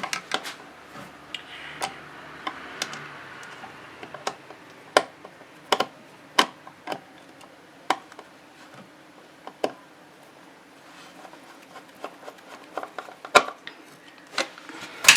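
Irregular sharp clicks and light metallic taps of a screwdriver and small hand tools working on an amplifier circuit board, as a replacement amplifier IC is screwed down to its heatsink.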